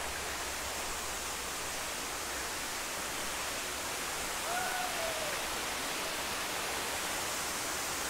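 Steady rush of a waterfall, an even, unbroken hiss of falling water. About halfway through, one short faint call arches over it.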